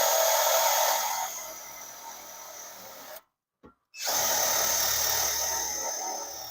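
Power drill driving a self-drilling tech screw into exhaust pipe, in two runs. The first run eases off in level over about three seconds, then stops. After a short pause a second run goes to the end.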